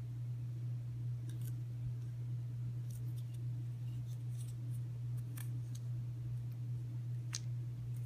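A few faint, scattered clicks and scrapes from a plastic syringe drawing melted gallium back up off a palm, over a steady low hum.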